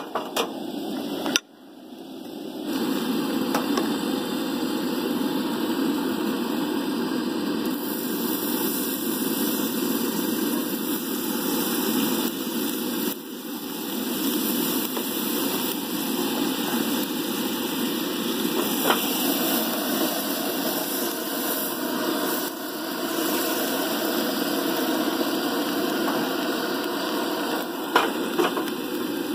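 Coleman two-burner propane stove's burner running with a steady hiss under a cast iron skillet of hot, smoking bacon fat. Near the end come a few sharp clinks as the skillet is handled on the grate.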